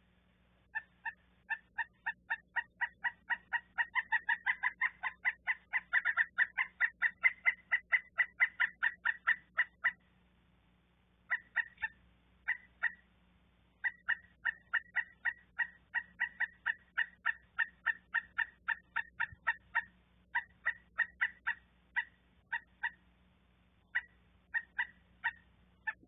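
Pileated woodpecker calling: a long, loud series of short repeated notes, about four a second, swelling and then easing. The series breaks off about ten seconds in and then goes on in shorter runs.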